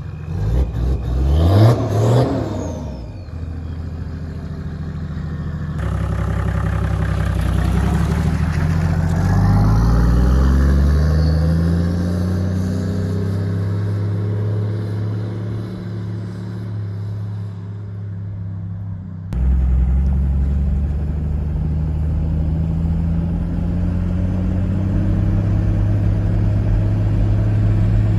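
Toyota 1HD-FTE turbo-diesel straight-six in a Landcruiser 105 series, driving off and accelerating, its pitch rising for a few seconds before it settles. Near the end it is heard from inside the cabin, running steadily.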